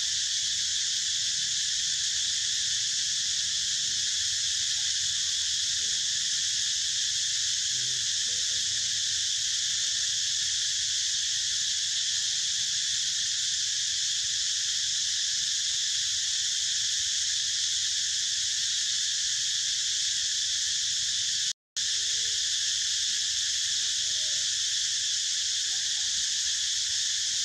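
Steady, high-pitched chorus of insects droning without a break. It cuts out for an instant about three-quarters of the way through.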